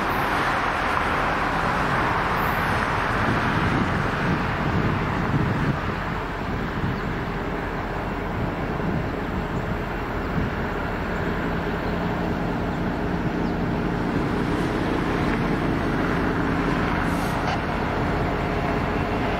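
Diesel freight locomotive approaching slowly, its engine's steady low hum building through the second half, over a hiss of road traffic.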